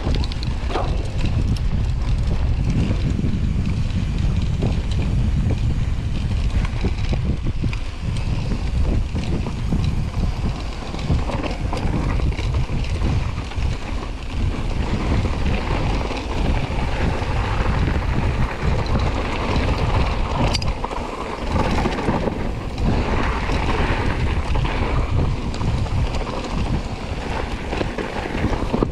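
Mountain bike riding down a rough trail: wind rumbling on the camera microphone over tyre noise, with frequent clicks and rattles from the bike.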